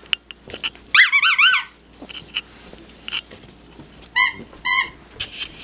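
A dog squeezing a squeaky toy: a quick run of rising-and-falling squeaks about a second in, then two short squeaks near the end.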